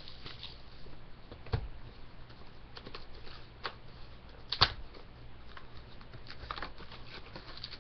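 Sealed cardboard box of hockey cards being opened by hand: rustling of cardboard and wrapper with scattered clicks and taps, two sharper knocks about one and a half and four and a half seconds in.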